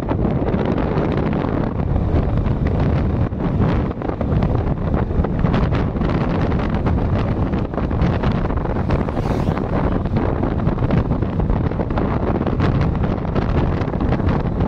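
Wind buffeting the microphone: a steady, loud rumble that stays even throughout.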